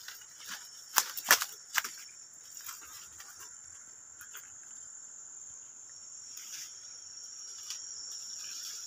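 Forest insects keep up a steady high-pitched drone, with three sharp cracks between one and two seconds in, the loudest sounds here.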